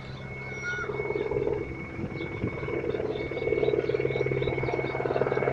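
Distant helicopter with a rapid, pulsing rotor chop over a steady engine hum, growing louder from about halfway through as it comes nearer.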